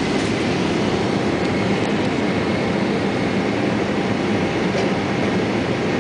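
Steady cabin noise of a Boeing 787-8 airliner in flight: a constant rush of air with a low rumble underneath.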